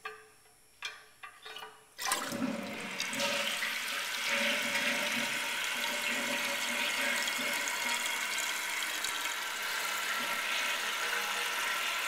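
A few clicks, then about two seconds in the 1974 Kohler Cayuga toilet flushes: water rushes out of the tank and keeps running steadily as the tank drains and refills.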